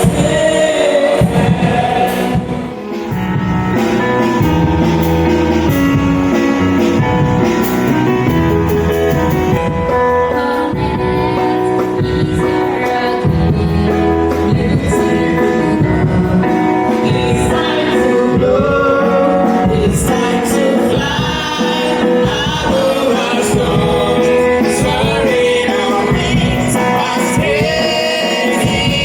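Gospel music with singing voices over a steady bass beat, as in live praise and worship.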